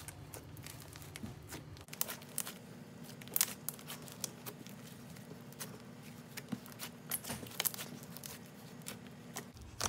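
Slightly sticky white glue slime being kneaded and pulled by hand with Daiso soft clay worked in, giving irregular soft clicks and pops.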